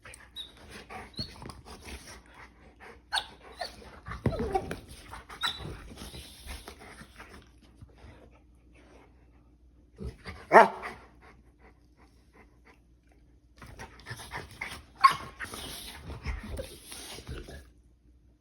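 American Bully dogs play-fighting: scuffling and panting in two bouts with a lull of several seconds between them. One loud, sharp sound comes in the lull.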